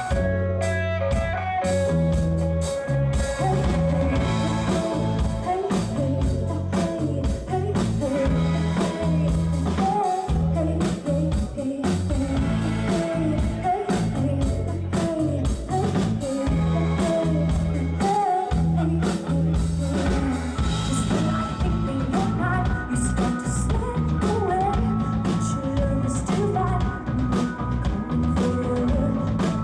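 Live band performing a song, heard from the audience: a woman singing over electric guitar, bass guitar, drums and keyboard, with the vocal coming in a few seconds in.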